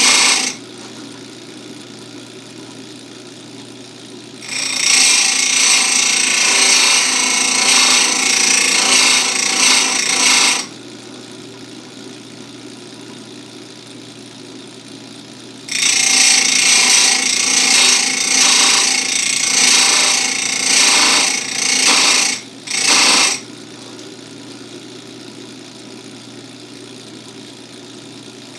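Electric chain grinder's wheel sharpening the cutters of a full-chisel chainsaw chain: the motor runs steadily with a low hum, and the wheel bites into the teeth in loud rough grinding stretches of about six seconds each, twice, then a short touch near the end.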